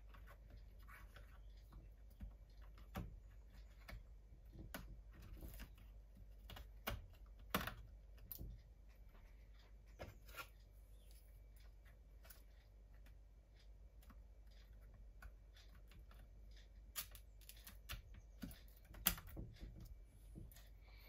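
Faint, irregular clicks and taps of fingers and small parts on the opened MacBook Pro, as a RAM module is seated and internal connectors are pressed into place. A few louder clicks come around the middle and near the end.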